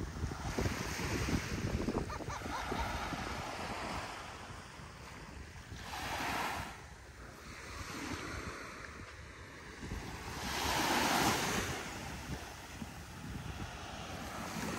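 Surf washing onto a sandy beach, the hiss of the breaking waves swelling and fading every few seconds, loudest about two-thirds of the way through. Wind rumbles on the microphone underneath.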